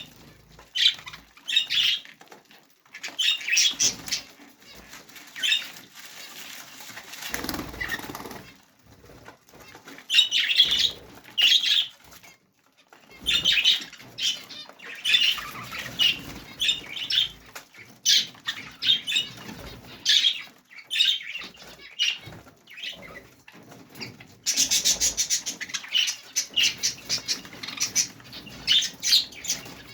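Budgerigars chirping and chattering in quick, irregular bursts of short high notes, with brief pauses between bouts. About eight seconds in there is a short, fuller rustling burst.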